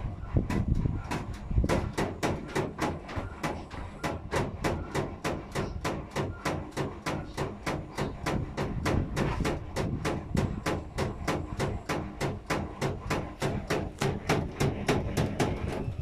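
Whirlpool FL 5065 front-loading washing machine on a 600 rpm spin with an unbalanced load, knocking rhythmically about four times a second over a low rumble.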